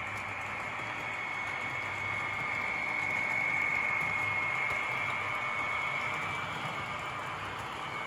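HO scale Walthers Trainline GP15-1 diesel locomotive running on the track, its small motor and gears giving a steady high whine over the rolling noise of the train. The whine grows louder a few seconds in as the train rounds the curve close by, then eases off.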